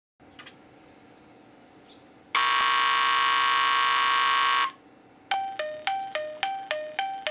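Electronic train sound-effect generator playing a synthesized horn, one steady blast of about two seconds. About five seconds in it switches to two alternating tones, each struck and dying away, about three strikes a second, in the manner of a Japanese level-crossing warning.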